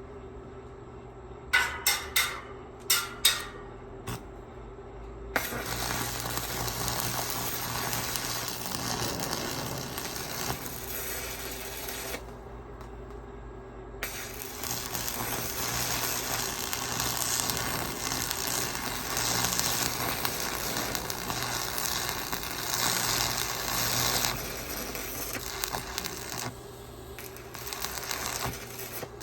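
A few sharp metallic clinks, then electric arc welding crackling and sizzling in two long runs with a short break between, over a steady low hum.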